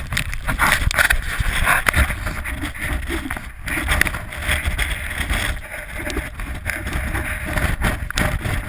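Strong gusting wind buffeting a GoPro's microphone: a loud, deep rumble that swells and falls with the gusts.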